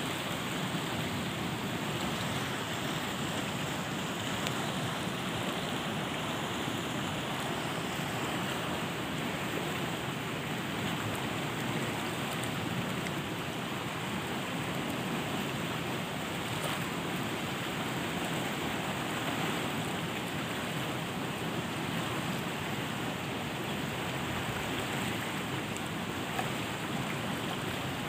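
Steady rushing of fast-flowing river water, an even noise without pauses or distinct splashes.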